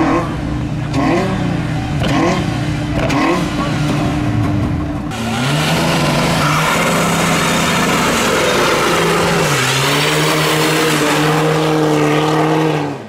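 Car engines revving hard during burnouts. First a Peugeot 206 revs in short repeated blips. About five seconds in, a second car holds high revs over a loud, steady rush of spinning tyres, its engine pitch dipping and recovering once.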